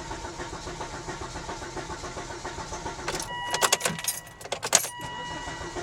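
Car engine cranking on the starter without catching for about three seconds, because no fuel is reaching it after the fuel pump replacement. Then key clicks and rattles, with a steady warning tone sounding twice.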